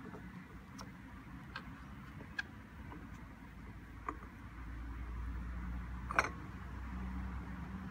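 A thumbnail rubbing and flaking the wax coating off an apple's skin: faint scattered clicks and scratches, the loudest a little past the middle. A low rumble grows in about halfway through.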